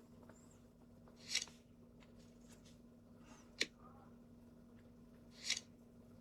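Quiet room with a faint steady hum, broken by two brief hissing sounds and one sharp click about halfway through.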